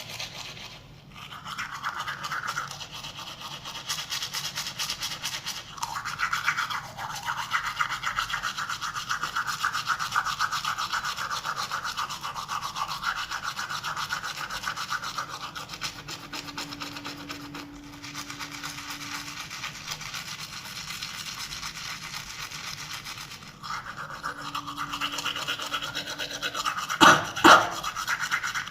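Toothbrush scrubbing in the mouth in rapid back-and-forth strokes, with a few brief pauses. Near the end, two loud, sharp sounds come about half a second apart.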